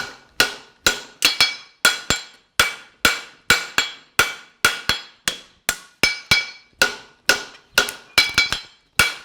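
Farrier's hammer striking hot horseshoe steel on an anvil, about two to three blows a second, each blow leaving a short metallic ring. The blows are bumping (upsetting) the heated bar down to thicken it while keeping it straight.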